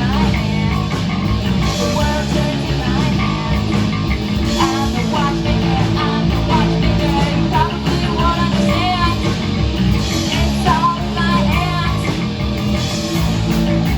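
Loud rock band playing live: heavy, punk-style music with electric guitar, going on steadily throughout.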